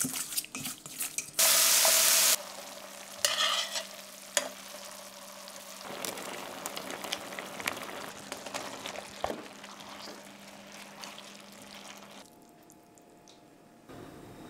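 Cooking sounds: a silicone spatula stirring diced raw chicken in a stainless steel bowl, and a loud burst of sizzling lasting about a second, starting about a second and a half in. Then a softer, steady sizzle and bubble from a pan of spaghetti cooking in liquid, with light clicks of utensils, dying down near the end.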